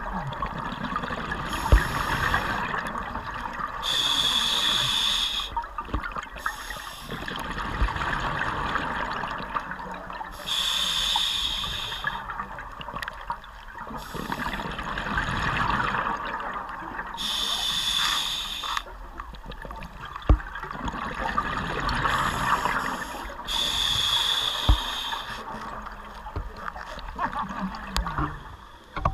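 Scuba breathing underwater through a regulator: about five breaths, each a hiss followed by a rush of bubbles, several seconds apart. A few sharp knocks fall between them.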